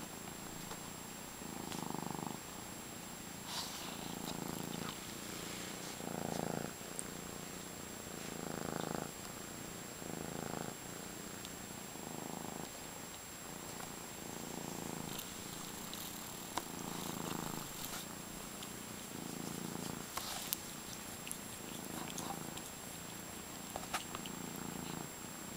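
Tabby-and-white kitten purring close up, swelling and fading in even pulses about every second and a half.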